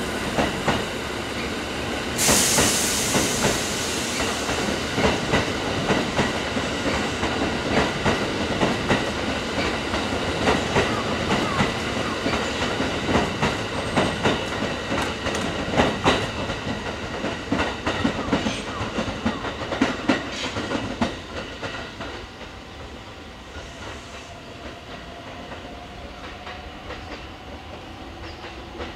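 Kintetsu 23000-series Ise-Shima Liner limited express passing through the station, its wheels clacking steadily over the rail joints, with a sudden hiss about two seconds in. The sound dies away after about twenty seconds as the last cars draw off, leaving a faint rumble.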